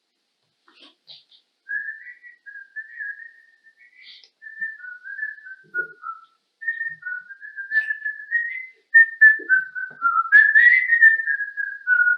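A person whistling a wandering run of notes, with short breaks between phrases, starting about two seconds in and getting louder in the second half.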